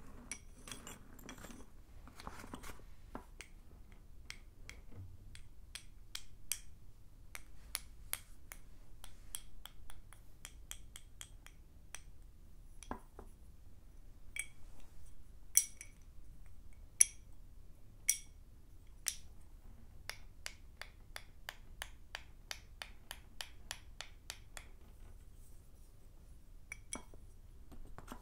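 Sticks of blackboard chalk tapped and clicked against each other: an irregular run of light, bright clinks with a short ring, a few sharper ones in the middle. A soft scuffing in the first couple of seconds.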